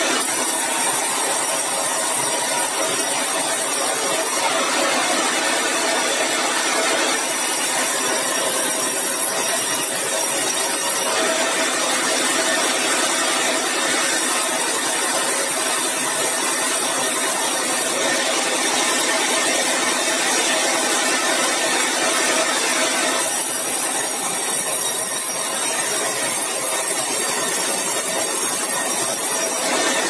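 Sawmill band saw running steadily and cutting through keruing hardwood, a continuous loud hiss and whine whose sharpness shifts every few seconds as the timber is fed through the blade.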